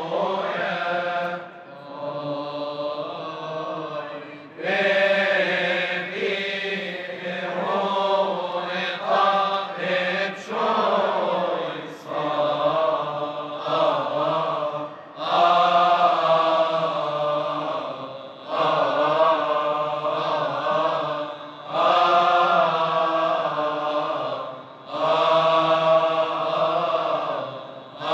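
Coptic liturgical chant sung by a choir of deacons, a slow melismatic melody in long phrases with short breaks between them.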